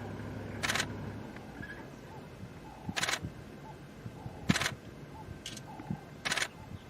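Five short, sharp bursts of noise spaced a second or more apart, over a low steady hum that stops about a second in.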